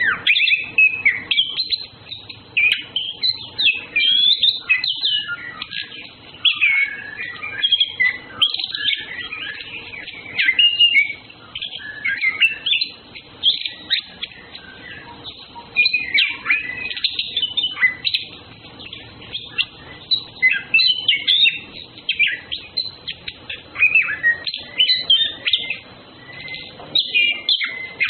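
Orange-headed thrush (anis kembang) singing: bursts of rapid, varied high chirps and whistles lasting a few seconds each, broken by short pauses.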